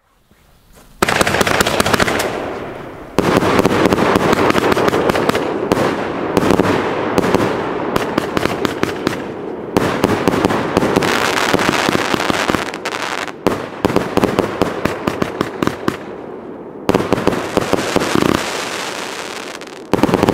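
A Predator firework cake (battery) firing, starting about a second in: a continuous run of shots bursting in dense, rapid crackling volleys. There are a few short breaks, the first about three seconds in.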